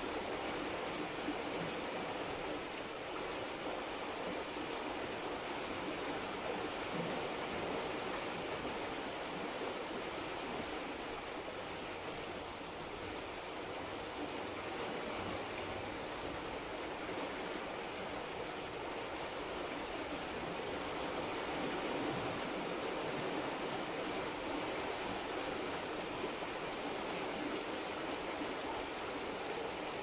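Steady, even hiss of rushing water, with no separate drops, splashes or other events standing out.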